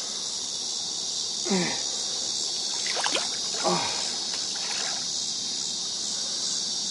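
Steady high-pitched insect chorus. Two brief falling-pitch vocal exclamations come about a second and a half and nearly four seconds in.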